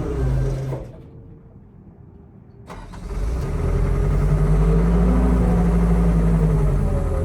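Diesel engine of a CAT E120B excavator running. It drops away about a second in, comes back suddenly about two seconds later, and then runs steadily with a slow rise and fall in pitch. The machine will not hold a good fuel prime.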